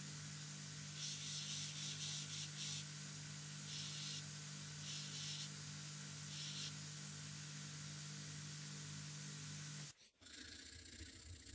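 Belt grinder's motor running with a steady hum while a steel hatchet head is pressed against the abrasive belt in four short bursts of grinding, the first the longest. The hum cuts off suddenly near the end.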